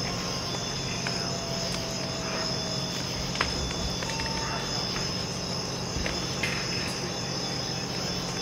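Crickets chirring in a continuous high trill over a steady low hum.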